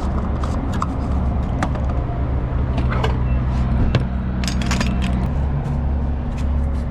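Car engine running with a steady low rumble, with a few light metallic jingles and clicks about a second and a half in, around three seconds, and a cluster near four and a half to five seconds.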